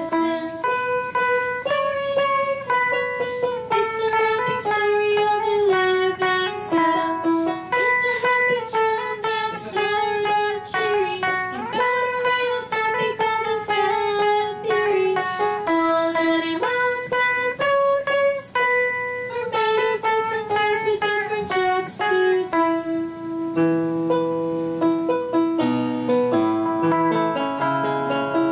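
Guitar music: a plucked melody of single notes. About 22 seconds in it gives way to longer held notes over a lower line, with a keyboard coming in.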